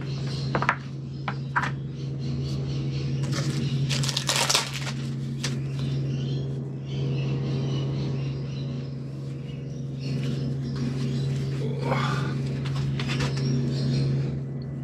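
Paintbrush working epoxy resin in a plastic tray: scattered scrapes and light knocks of the brush against the tray, with a louder scrape about four seconds in, over a steady low hum.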